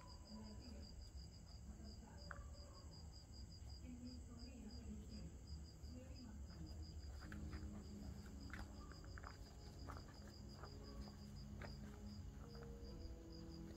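Cricket chirping steadily, about three or four short chirps a second, over a faint low rumble with a few soft clicks.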